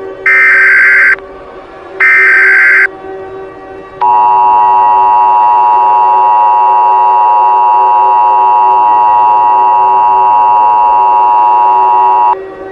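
Emergency Alert System SAME header: two short, harsh digital data bursts about 2 seconds apart. About a second later the EAS two-tone attention signal sounds steadily for about eight seconds and cuts off near the end. A faint steady low hum runs underneath.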